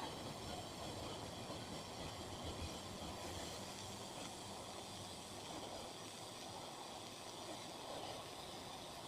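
TIG (argon) welding arc running steadily on galvanized steel plate that has been ground clean of its zinc coating: an even hiss with no spatter popping, which is the sign of the coating having been removed.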